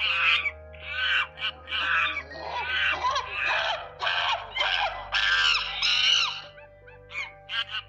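Monkeys giving a rapid series of high-pitched calls, each bending up and down in pitch, about ten in a row with short gaps, thinning out near the end.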